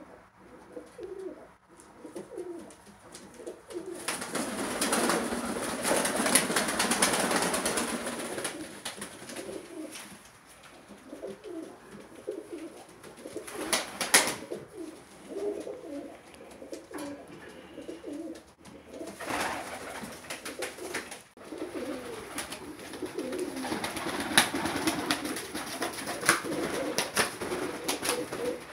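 Domestic pigeons cooing over and over in a loft, with stretches of wing flapping as birds take off and fly about, and a sharp wing clap about halfway through.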